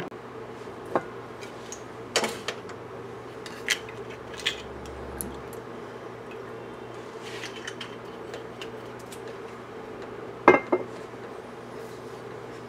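Scattered kitchen clatter: a few short clinks and knocks of utensils and cookware, the loudest pair about ten seconds in, over a steady low hum.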